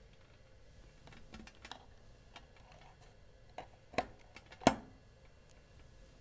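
USB cable being plugged into the EV2400 interface box: faint handling clicks and rustle, then two sharper plastic clicks about four seconds in, under a second apart, as the plug is pushed into the socket.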